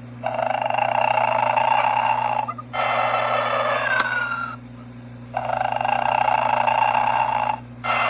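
Gemmy Snoring Santa animated figure playing its snore sound: a raspy inhaled snore followed by a whistling exhale that falls in pitch, repeated twice. A faint steady low hum runs underneath.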